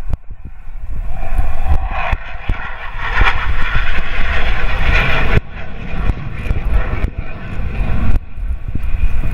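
Hawker Hunter jet fighter's engine heard as the aircraft flies a display pass, swelling to its loudest about three to five seconds in and dropping off abruptly after that, with a low rumble of wind on the microphone.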